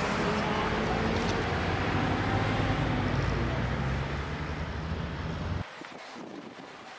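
Motor vehicle driving past close by, its engine running with tyre and road noise, the engine pitch rising slightly. It cuts off suddenly about five and a half seconds in.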